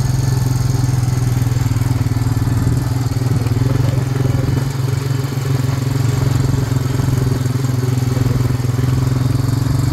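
Four-wheeler (ATV) engine running steadily at low speed, a constant low hum with a slight dip about five seconds in.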